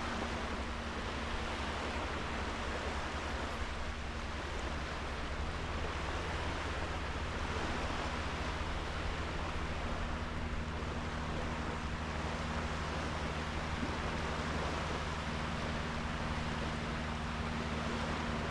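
Sea waves washing onto a sandy beach: a steady rushing surf that swells and eases, with a steady low hum underneath.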